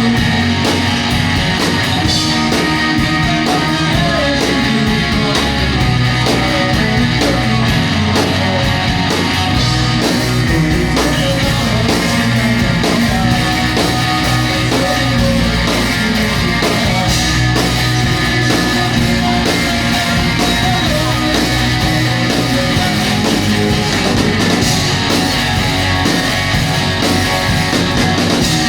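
Amateur rock band playing live, with guitars and a drum kit, steady and loud throughout.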